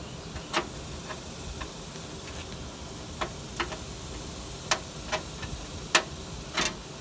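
A scattering of short, sharp clicks and taps at uneven intervals, about nine in all and the loudest near the end, as tools and hardware are handled under the front bumper.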